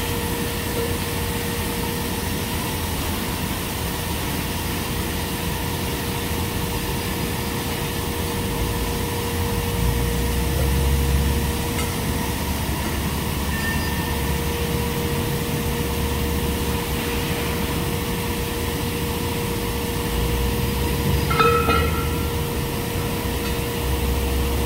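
Steady machinery hum with a constant mid-pitched tone, and a low rumble that swells now and then. There is a brief higher-pitched sound about 21 seconds in.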